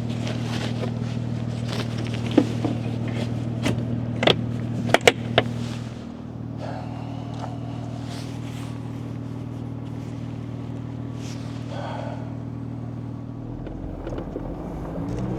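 Vehicle engine idling steadily, with several sharp clicks and knocks in the first half. Near the end the engine pitch rises as the vehicle pulls away.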